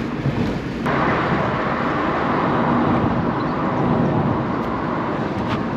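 Road and wind noise of a car being driven, a steady rushing hiss that suddenly grows louder about a second in.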